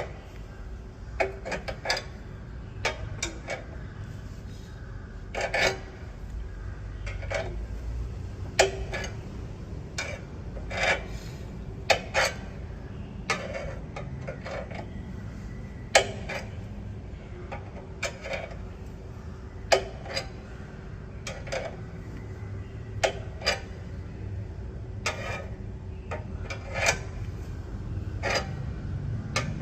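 Hand-cranked car jack being wound up to lift the car for a tyre change: irregular metallic clicks and knocks from the jack's handle and screw turning, with rubbing between them.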